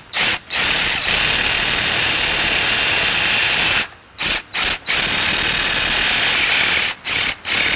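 Electric drill enlarging a drilled-out rivet hole in the door latch to a quarter inch. The motor runs in stretches of two to three seconds, with quick trigger blips in between.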